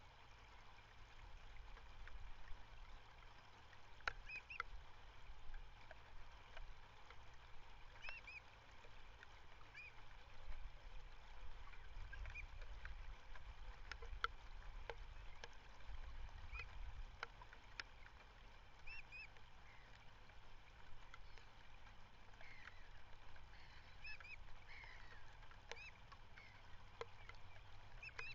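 Birds giving short, high calls, singly or in pairs, every second or two, over a steady low rumble.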